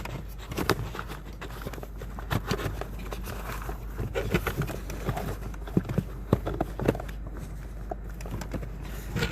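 A folded charcoal cabin air filter being worked into its plastic housing channel by hand: irregular clicks, knocks and scraping of the filter frame against the plastic.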